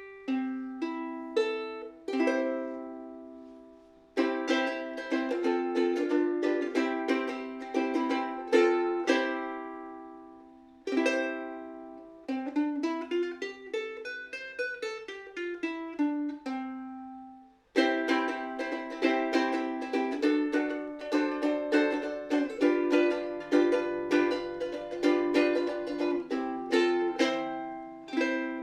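Kala KA-ZCT-S ziricote soprano ukulele being played: strummed chords and picked notes ringing and dying away, with a run of single notes climbing and then falling back about halfway through and a few short breaks between phrases.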